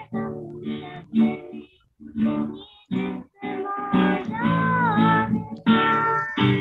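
A girl singing a song to a strummed acoustic guitar, heard over a video call, with a couple of short gaps.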